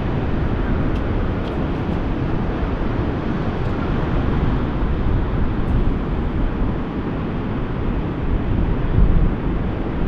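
Steady roar of ocean surf breaking, with wind rumbling on the microphone.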